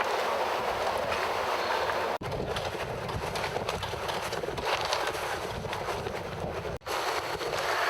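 Wind buffeting the microphone over the rush of water aboard a sailing catamaran under way. The steady noise cuts out abruptly for an instant twice, about two seconds in and again near the end.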